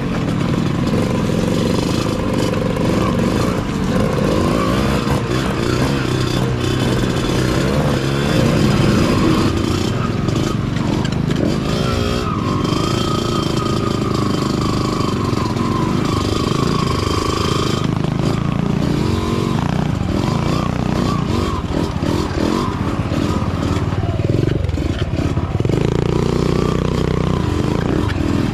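Dirt bike engines running at low speed on an off-road trail, their pitch rising and falling as the throttle is worked.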